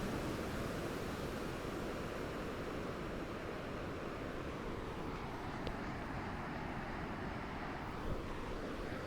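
Gentle ocean waves lapping and washing onto a beach in a steady surf.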